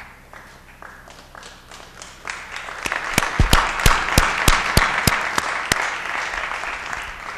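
Applause that builds from about two seconds in, with a few loud single claps standing out at its peak, then fades away.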